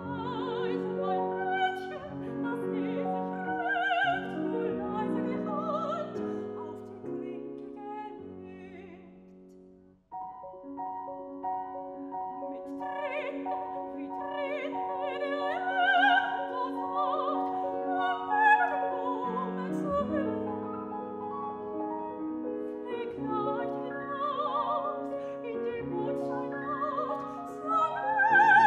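Solo soprano singing classical repertoire with vibrato, accompanied by a Steinway grand piano. About ten seconds in, the music fades out and breaks off, then comes back in suddenly mid-phrase.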